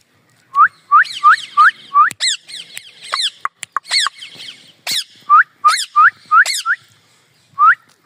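Indian ringneck parakeet calling in short rising whistled notes, about three a second in runs of four or five, mixed with higher falling chirps and a few sharp clicks. The runs come twice, with a pause in between.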